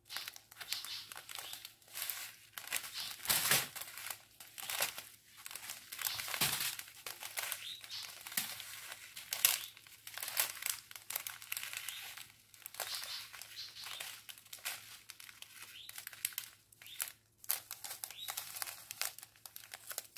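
Clear plastic strip of sealed diamond-painting drill bags crinkling as it is handled and turned, in irregular rustling bursts.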